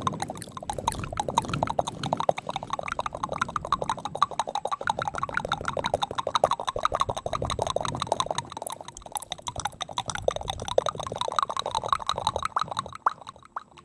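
Layered ASMR mouth sounds: a dense, rapid stream of wet tongue and lip clicks and smacks, many per second, dying away near the end.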